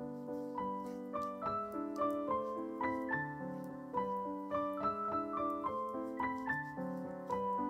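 Background piano music: a flowing melody of single notes, a few a second, over held lower chords.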